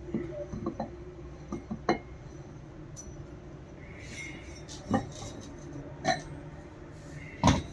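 Metal pump parts and tools clinking and knocking now and then, about six separate hits with the loudest near the end, as a Wilden air-operated diaphragm pump is taken apart on the bench. A faint steady hum runs underneath.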